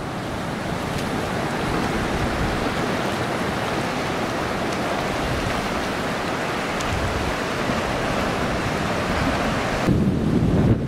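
Ocean surf washing up a sandy beach, a steady rush, with wind buffeting the microphone. The wind rumble grows stronger near the end.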